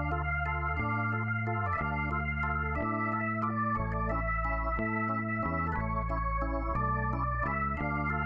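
Background music: sustained organ-like keyboard chords, with a low bass line, changing step by step about every second.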